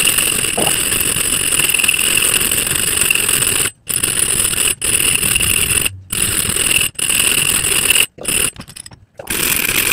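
Hand file scraping across the hardened steel serrated jaw of a pair of pliers held in a vise, cutting the teeth down flat. It goes in long strokes: the first runs almost four seconds, then shorter strokes follow with brief breaks between them as the file is lifted.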